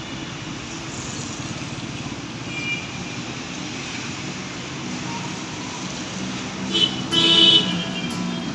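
Road traffic noise heard from a moving motorcycle, a steady rumble and hiss. A vehicle horn blares briefly about seven seconds in, the loudest sound.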